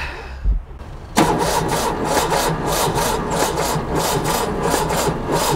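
Broken-down VW 1500 S's rear-mounted air-cooled flat-four turning over roughly with the engine lid open, starting suddenly about a second in and pulsing about three to four times a second.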